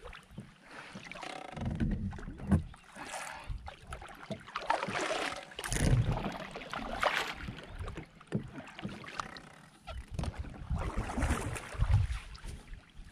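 Kayak paddle strokes swishing and splashing in river water, an uneven stroke every second or two, from a NuCanoe Frontier fishing kayak being paddled.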